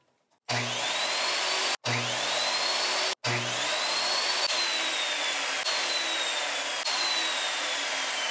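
Ryobi miter saw cutting wooden boards. Its motor whine rises as the blade spins up, three times over after two abrupt breaks in the first few seconds, then falls slowly while the blade runs through the wood.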